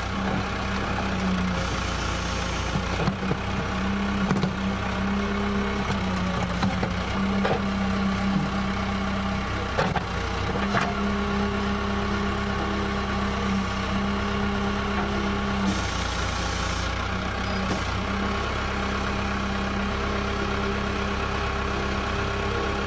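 Backhoe engine running steadily. Its strong low hum drops out and returns every few seconds, and there are a few short knocks.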